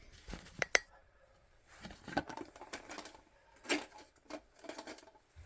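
Light clicks and rustling from handling the plastic parts of a new toilet fill valve while a rubber washer is fitted onto its threaded shank.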